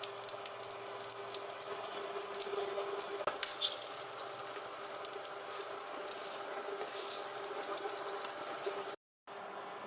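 Radish-shred cakes frying in hot oil: a steady sizzle full of small crackling pops, over a faint steady hum. The sound cuts to silence for a moment about nine seconds in.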